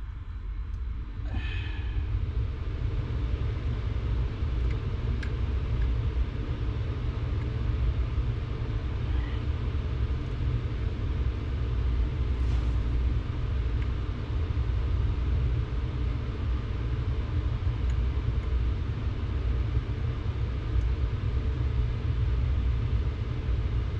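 A steady low rumble, with a few faint clicks and taps over it.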